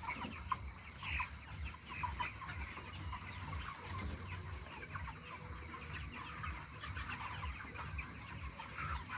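A large flock of broiler chickens in a poultry shed calling over one another: a dense, unbroken chorus of many short calls, over a low rumble.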